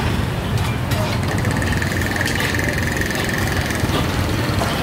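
Motorbike engine running close by, a steady low rumble, with a steady high whine for a couple of seconds in the middle.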